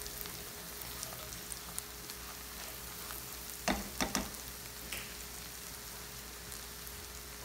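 Butter sizzling and crackling in a frying pan with chopped nuts, bacon and prunes, a steady hiss. A few sharp taps of the spatula against the pan come about four seconds in.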